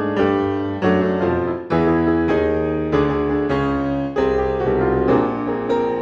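Background piano music: struck notes and chords, each fading away before the next is played.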